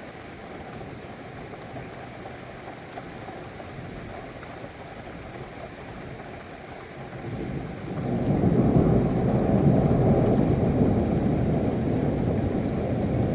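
Steady rain with a long roll of thunder that swells in about two-thirds of the way through and keeps rumbling, deep and loud.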